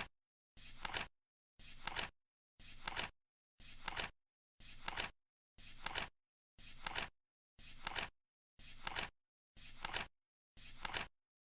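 Flip-clock card-flip sound effect, once every second: a short rustle about half a second long ending in a sharp click, with dead silence between flips.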